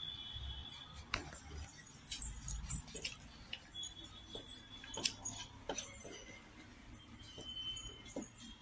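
Eating sounds: scattered light clicks and metallic clinks of food being handled on a plate, irregular and sharp.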